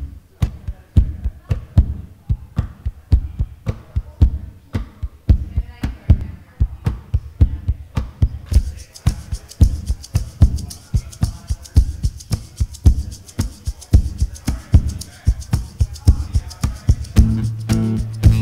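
Percussive acoustic guitar playing: rhythmic slaps and taps on the guitar's body and muted strings make a steady beat of low thumps and clicks. About halfway through, a hand shaker joins with a rhythmic hissing shake. Near the end, strummed acoustic guitar chords come in.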